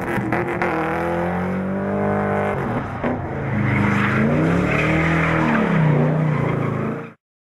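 Chevrolet Corvette V8 revving, its pitch rising and falling again and again, with tyres spinning and squealing on tarmac in a burnout from about halfway through. The sound cuts off suddenly near the end.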